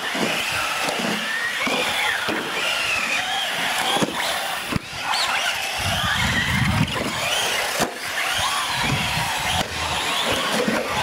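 Radio-controlled monster trucks racing on a concrete floor: their motors whine, rising and falling in pitch with the throttle, over tyre noise, with a few sharp knocks a few seconds apart.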